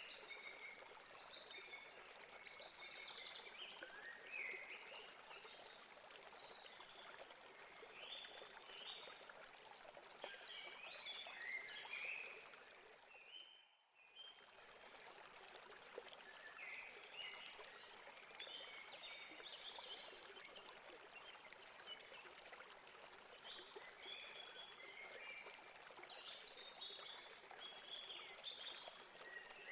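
Faint stream of water running over rocks, with small birds chirping on and off through it. The whole sound dips out briefly about halfway through.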